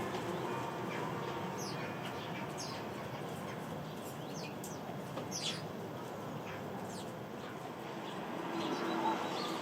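Sparrows chirping: scattered short, high chirps over a steady background hum.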